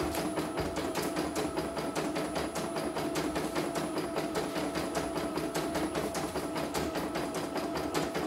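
CNY computerized embroidery machine stitching a test design: a steady motor hum under rapid, evenly spaced needle clicks, several a second.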